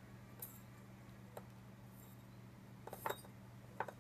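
Faint clicks and light taps of a small plastic cup against a glass conical flask as copper sulfate is tipped in, the sharpest a quick double click about three seconds in. A low steady hum runs underneath.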